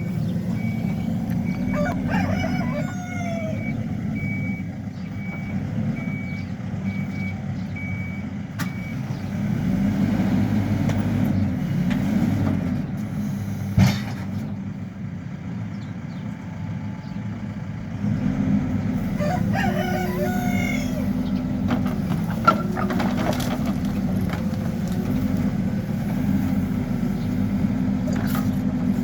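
Hidromek backhoe loader's diesel engine running steadily, with a reversing alarm beeping at an even rate that stops about nine seconds in. A rooster crows twice, about two seconds in and again about twenty seconds in, and a single sharp knock stands out about fourteen seconds in.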